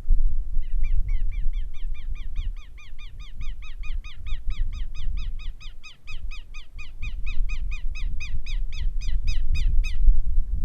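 A bird calling in a long, rapid series of repeated harsh notes, about five a second, lasting some nine seconds and cutting off near the end. Throughout, wind buffets the microphone with a low rumble.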